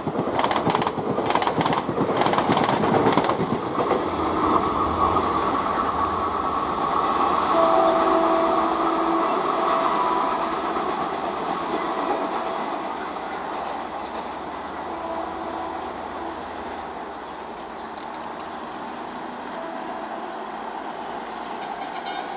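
Passenger coaches passing close, their wheels clacking in a quick rhythm over rail joints for the first few seconds, then the train's rumble fading as it moves away. A locomotive horn sounds as the rumble fades: a long blast from about 4 to 11 seconds in, another brief one around 15 seconds.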